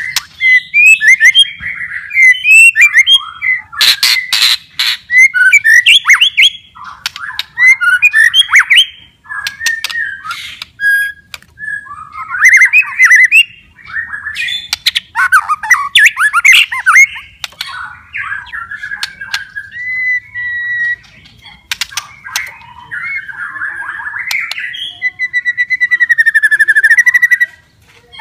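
White-rumped shama in full song: loud, fast-changing whistled and scratchy phrases mixed with sharp rattling clicks, with a long, wavering held whistle near the end.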